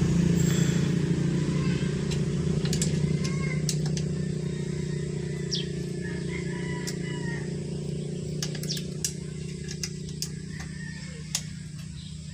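A small engine running steadily at one pitch, slowly fading and dying away near the end, with a few light clicks of parts being handled.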